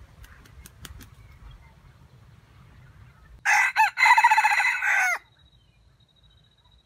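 A rooster crows once, loudly, about three and a half seconds in, with a brief break early in the call and the pitch falling away at the end.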